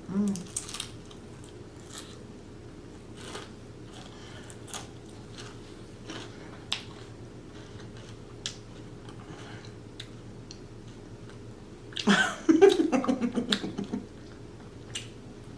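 Close-up chewing and crunching of crispy fried Chinese takeout food, a scatter of small crunches and wet mouth clicks. About twelve seconds in, a loud voiced sound from the eater lasts a couple of seconds.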